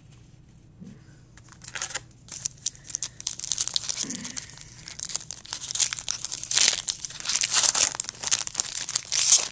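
A trading card pack wrapper crinkling and tearing as it is opened: a dense crackle that starts about two seconds in and cuts off suddenly at the end.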